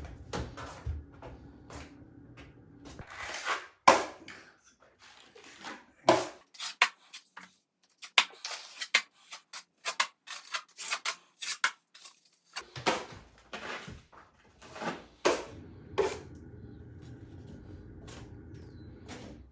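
Drywall mud (setting-type joint compound) being mixed by hand: a metal drywall knife scrapes and knocks against its container in an irregular run of sharp clicks and taps, busiest in the middle stretch.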